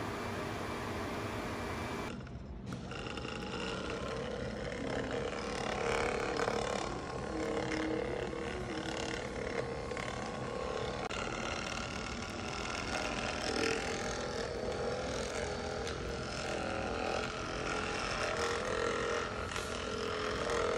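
For about two seconds, a cold-and-compression therapy machine hums steadily. Then a handheld percussion massage gun buzzes continuously as it is pressed against the lower leg.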